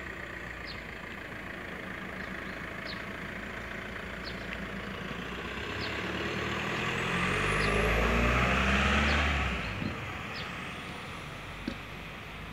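A motor vehicle's engine running and passing by, growing louder to a peak about eight to nine seconds in, then fading. Faint short high ticks recur about once a second.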